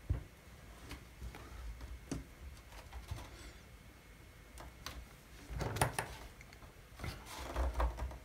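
Hands handling a wooden model ship and pressing small pins into its wooden moulding: scattered light clicks and rubbing, with busier bursts of knocking and rustling about six seconds in and again near the end.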